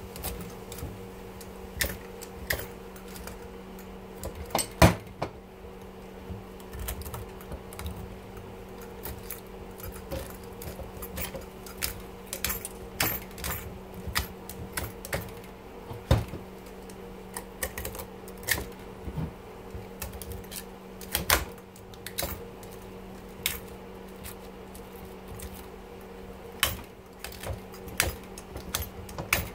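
Irregular metallic clicks, knocks and scrapes of a hand tool working the copper windings out of a dishwasher motor's stator held in a bench vise, a few louder knocks among them. A steady low hum runs underneath.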